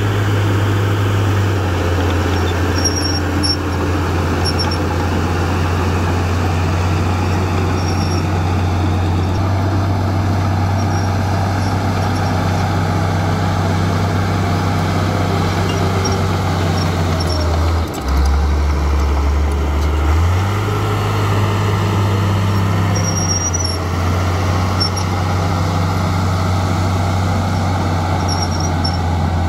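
Komatsu D53A crawler bulldozer's diesel engine running steadily under load as it pushes soil with its blade. Its pitch drops for about two seconds around eighteen seconds in, then picks back up.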